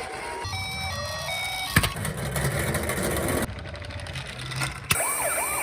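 A few short electronic tones and a rising tone, a sharp click, then a rattling, engine-like noise. Near the end a toy ambulance's electronic siren starts, wailing in fast up-and-down sweeps.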